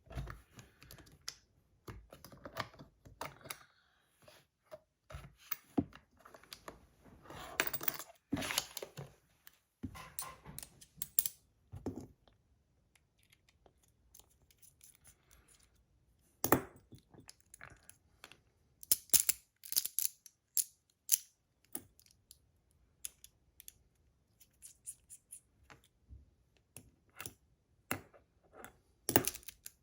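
Irregular small clicks, taps and short scrapes of a magnetic fidget slider's metal plates and parts being handled and taken apart with a small tool, with a quieter stretch about halfway through.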